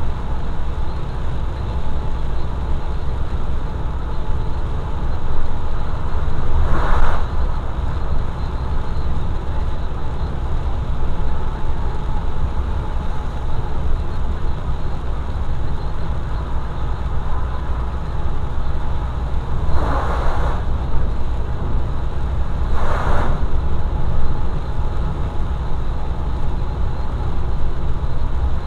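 Steady low road and engine rumble heard inside a vehicle driving on a rain-wet highway, with the hiss of tyres on the wet road. Three brief swells of louder hiss come through, one about a quarter of the way in and two close together later on.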